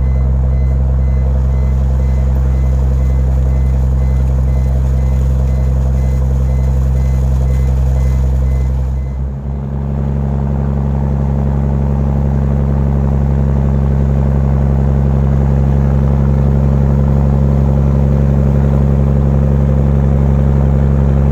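Shrimp trawler's engine running with a steady low drone. The sound dips briefly about nine seconds in, then carries on much the same.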